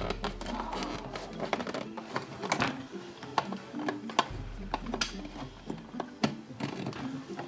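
Irregular small clicks and rattles from hands handling a curtain track and its pull cord as the cord is worked through the pulley mechanism.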